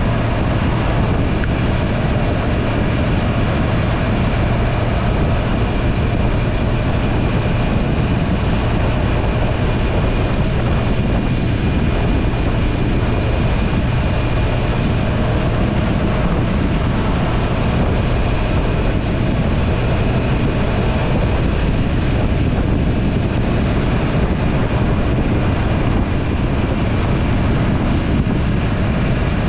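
Motorcycle running steadily at cruising speed, a constant low engine drone under heavy wind rush on the helmet or bike-mounted microphone.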